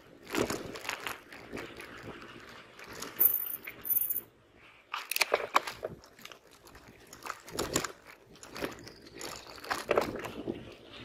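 Mountain bike rolling over a dry dirt road: tyres crunching on grit and the bike rattling over bumps, in irregular bursts.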